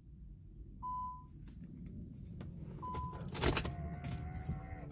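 The cabin warning chime of a 2003 Infiniti M45 beeping once every two seconds, a single steady tone. About three and a half seconds in there is a click and clatter, then a small electric motor whines steadily for about a second.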